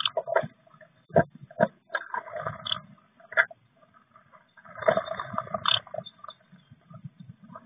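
Adult blue tits moving about close up inside a wooden nest box: irregular scratches, knocks and rustles of claws and wings on the wood and the dry grass and moss of the nest lining, busiest about five seconds in.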